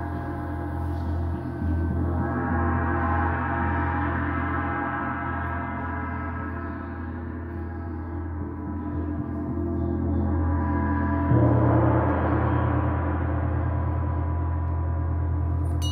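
Large suspended gongs played with soft mallets, ringing on in a dense, sustained wash of overtones. The sound swells about two seconds in and again near ten seconds, and a fresh, deeper stroke about eleven seconds in is the loudest moment.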